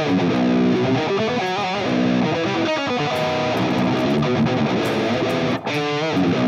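Ibanez electric guitar played through an Axe-Fx modeler on a very dry rhythm patch with nothing added: a continuous run of picked notes and riff figures, with a brief break in the playing shortly before the end.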